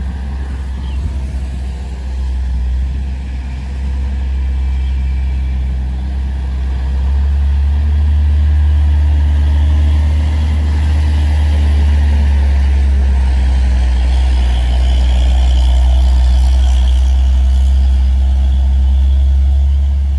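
Heavily loaded Hino cargo truck's diesel engine pulling slowly uphill: a deep, steady drone that grows louder about seven seconds in as the truck draws level, and stays loud as it moves away.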